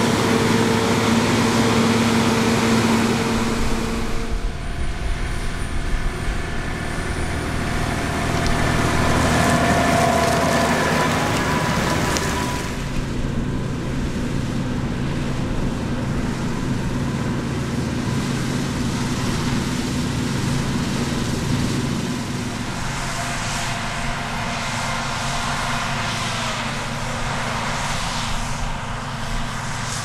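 Diesel engines of large harvest machinery running steadily, several engine tones overlapping. The sound changes about four seconds in and again near the middle and about two-thirds of the way through, as the machines move.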